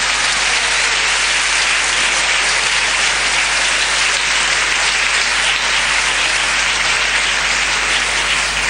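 Theatre audience applauding steadily, welcoming a performer onto the stage.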